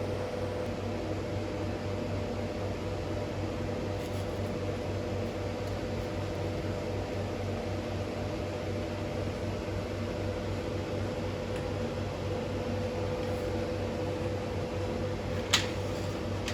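Steady mechanical hum of a running machine, even and unchanging, with one sharp click near the end.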